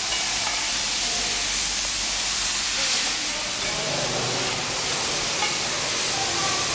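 Steady, loud hiss at an air-spring vulcanizing press as a worker works a long tool into the mould, turning sharper and higher for about a second and a half past the middle.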